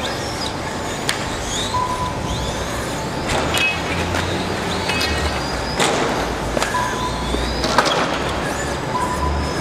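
Radio-controlled model car running over an obstacle course, with scattered sharp clicks and knocks.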